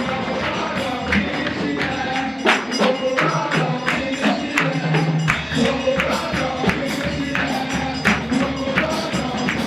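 Fast-beat praise music: quick, steady percussion strikes over held low pitched notes.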